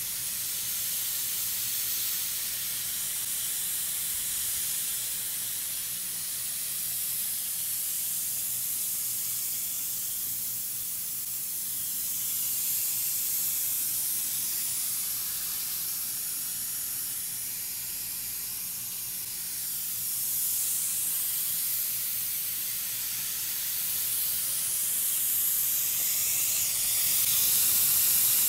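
Steady hiss of propane gas at the brass valve of a 20 lb propane cylinder while it is being refilled through a hose from an inverted cylinder, growing somewhat louder near the end.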